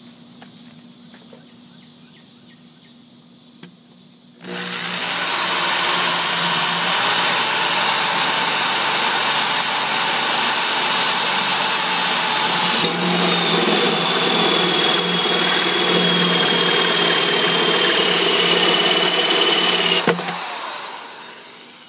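Electric drill spinning a hole saw, cutting the center hole through the boat deck's rubber tread: a loud, steady whir that starts about four seconds in. Its whine sinks slowly in pitch through the second half as the saw is loaded, and it stops about two seconds before the end.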